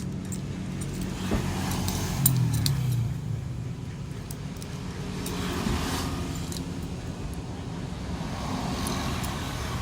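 A steady low hum throughout, with a few light metallic clicks and rustles as a snap belt buckle and its leather strap are handled.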